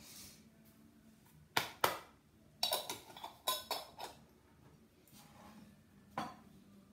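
Screw-top lid being twisted tight on a glass jam jar: a few sharp clicks and clinks of lid against glass, a pair just under two seconds in, a quick run around three to four seconds, and one more near the end.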